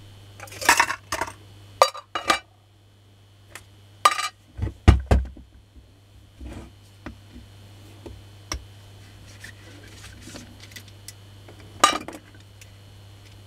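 Small metal parts and hand tools being handled on a workbench: irregular clinks and clatters of screws and parts in a tin can, with a few heavier knocks about five seconds in. A low steady hum runs underneath.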